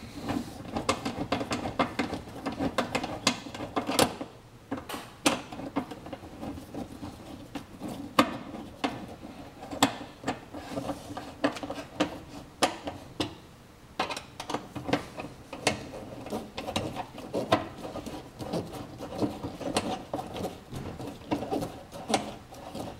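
Screws being tightened into a metal mud flap bracket with a small hand tool: a rapid, irregular run of clicks and ticks of metal against metal.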